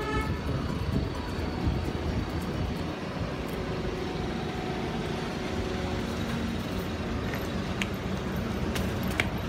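Street noise with a motor vehicle engine running steadily, and a couple of short sharp clicks near the end.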